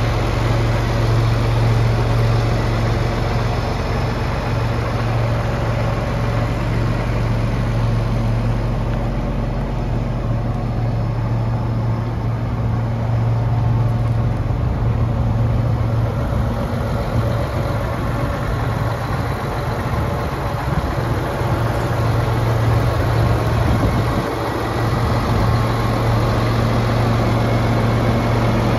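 John Deere 8320R tractor's 9.0-litre six-cylinder diesel idling steadily, with a constant low hum.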